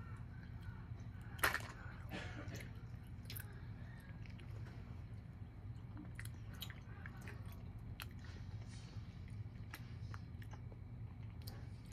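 A person chewing chewy candy close to the microphone: scattered small wet clicks and smacks, with one louder click about a second and a half in, over a steady low hum.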